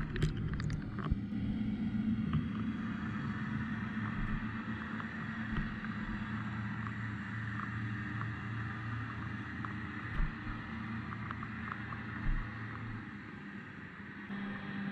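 Underwater recording: a steady low drone over a muffled wash, with scattered faint clicks. A lower tone in the drone drops out near the end.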